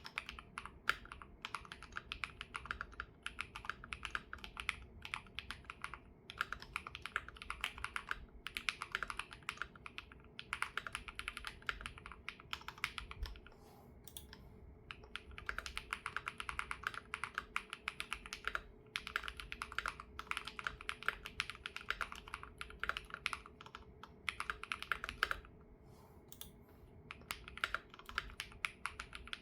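ROG Azoth Extreme mechanical keyboard with Y3x switches, its gasket mount set to Hard mode and its silicone pads removed, being typed on in fast runs of key clicks broken by short pauses.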